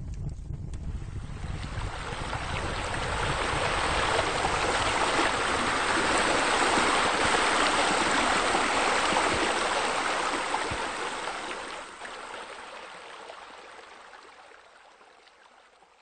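Running water from a pool's water features, swelling in over the first few seconds, holding steady, then fading away toward the end.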